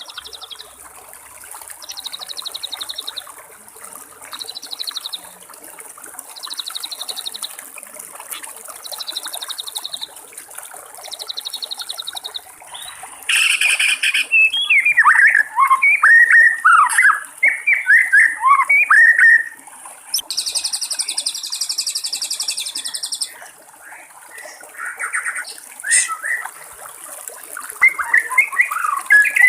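White-rumped shama singing. Short buzzy high phrases repeat about every two seconds, then a loud harsh note gives way to a quick run of varied whistled notes, with more phrases near the end, over a steady high hiss.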